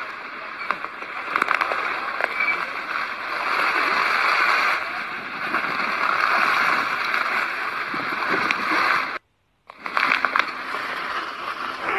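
Floodwater rushing and splashing as a steady loud wash of noise with scattered small splashes. It drops out briefly about nine seconds in, then resumes.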